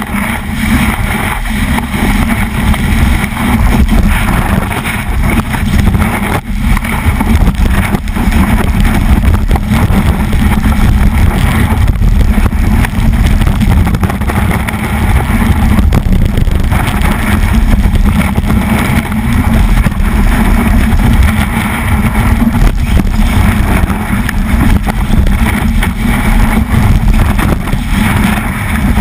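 Steady rumble and rush of a snowboard sliding over snow, with wind on the microphone, picked up by a camera mounted on the board's nose.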